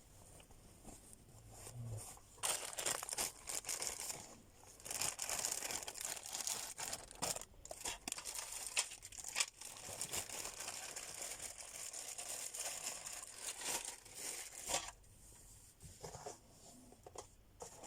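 Packaging crinkling and tearing as it is handled and pulled open, in a long run of irregular crackling bursts that dies down about three seconds before the end.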